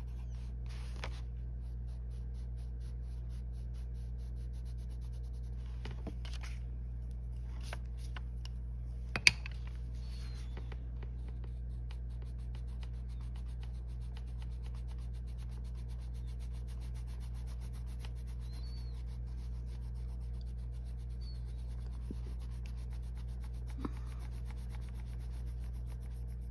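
Arteza colored pencil rubbing and scratching on paper in blending strokes, over a steady low hum. A single sharp tap about nine seconds in.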